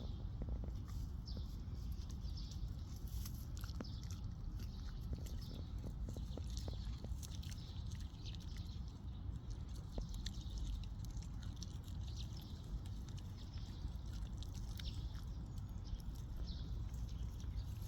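A dog chewing grass: many quick, irregular crunching and tearing clicks, over a steady low rumble.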